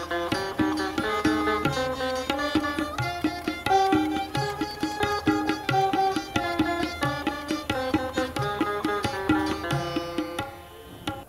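An ensemble of veenas playing Carnatic music in unison, a fast run of plucked notes, with a violin accompanying. The playing softens near the end.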